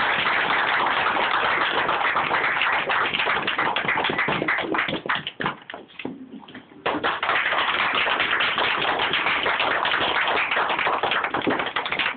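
Audience applauding, a dense patter of many hands clapping. It dies down about five seconds in and picks up again about two seconds later.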